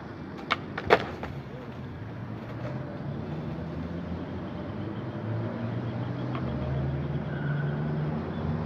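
Two sharp skateboard clacks about half a second apart, a little after the start, the second louder: the wooden deck striking concrete as a flat-ground trick is popped and comes down. After that a steady low rumble of traffic, slowly growing louder.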